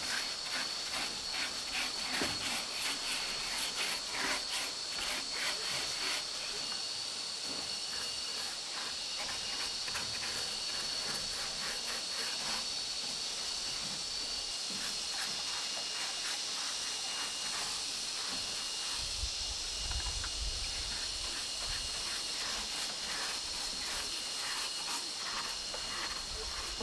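Insects trilling steadily in one high, unbroken tone, with a second, lower trill coming and going from about seven seconds in. A run of light, irregular ticks or scrapes sounds over the first half.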